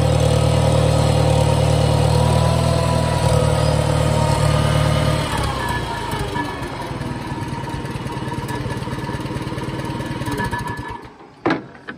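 1973 International Farmall 140's four-cylinder gasoline engine running steadily. It drops to a lighter, quieter running about five seconds in, and then the sound cuts away near the end with a couple of clicks.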